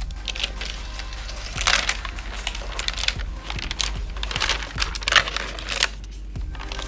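Protective wrap around a new laptop rustling and crinkling as the laptop is slid out of it, in irregular bursts, three of them louder.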